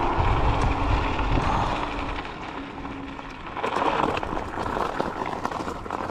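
Varla Eagle One electric scooter on off-road tyres riding a dirt trail: wind rumbling on the handlebar microphone over a steady hum for the first few seconds, then, as it slows about three and a half seconds in, tyres crunching over loose gravel.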